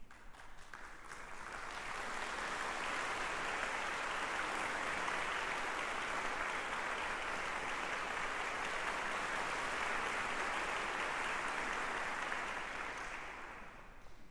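Audience applauding, building up over the first couple of seconds, holding steady, then dying away near the end.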